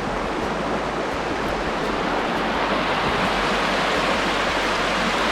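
Steady rushing of flowing water from a stream, an even noise that swells slightly toward the end.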